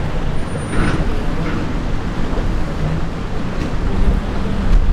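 Wind buffeting the microphone at the water's edge, with waves and a low steady hum that comes through more clearly in the second half.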